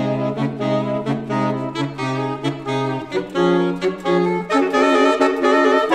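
Saxophone quartet (soprano, alto, tenor and baritone saxophones) playing chamber music. Short detached chords, about three a second, pulse over a low baritone bass line, then give way about halfway through to longer held notes that swell into a loud sustained chord near the end.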